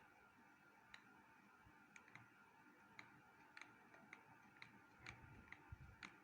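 Near silence with faint, sharp ticks, about one a second at first and then closer together in the second half.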